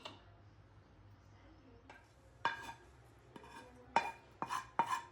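Steel kitchen utensils clinking: about six separate metallic knocks with short ringing, starting about halfway in and coming at uneven intervals, as the mixer-grinder jar and its contents are handled between grinds.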